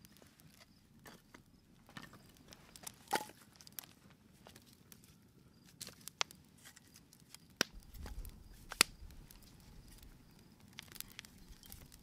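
Scattered light clicks and knocks at irregular intervals, with a louder knock about three seconds in, a brief low rumble around eight seconds, and a sharp click just before nine seconds.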